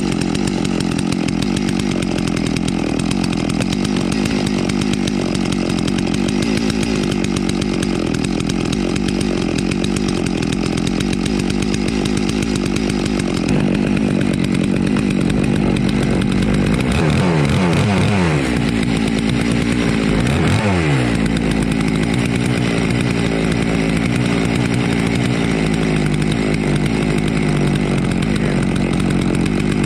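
Holzfforma G660 two-stroke chainsaw engine running a Lewis MK2 capstan winch, holding a steady pitch. Twice, a little past the middle, its pitch sags and then recovers.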